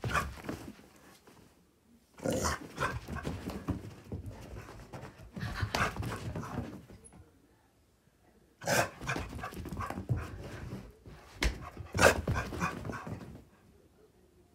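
Dog making rough, mean-sounding play noises, growling and panting, in three bursts of a few seconds each with short quiet pauses between, as it thrashes about during bedtime zoomies.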